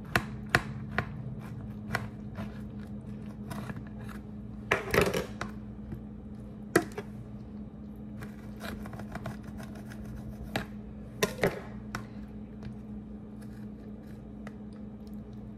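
Kitchen knife sawing through a rolled tortilla wrap on a plate, with scattered sharp clicks and taps as the blade meets the plate. A steady low hum runs underneath.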